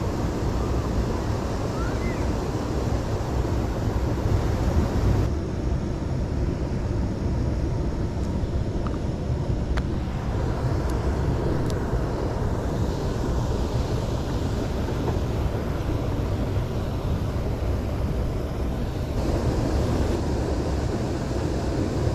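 Steady rushing of a waterfall, a constant deep rumble with hiss over it. The higher hiss thins out from about five seconds in until near the end.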